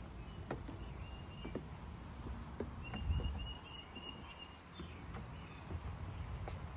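Faint bird calls: a thin pulsed trill held on one high note, repeated a few times, and short falling chirps, with scattered light clicks and knocks.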